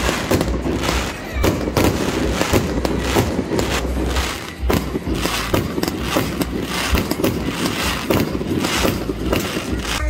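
Fireworks going off in quick succession: a dense run of bangs and crackles, several a second.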